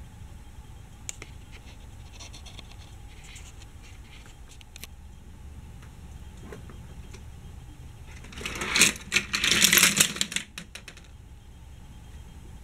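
Hard plastic clattering and rattling for about two seconds past the middle, with scattered light clicks before it.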